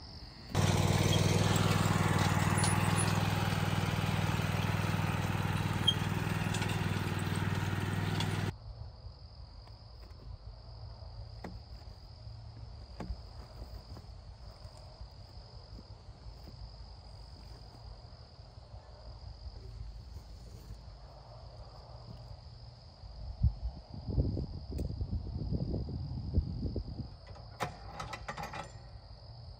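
Riding lawn mower engine running steadily for about eight seconds, then cutting off abruptly. After it, insects chirp steadily, with a few low thumps and scuffs near the end.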